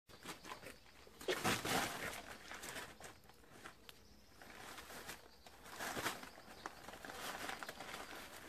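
Crumpled newspaper rustling and crinkling under kittens scrambling over it, in uneven spells, loudest about a second and a half in and again around six seconds.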